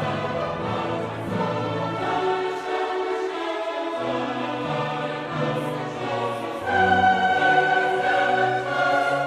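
Classical choral music with orchestra, the choir singing long held notes. It swells louder about two-thirds of the way in.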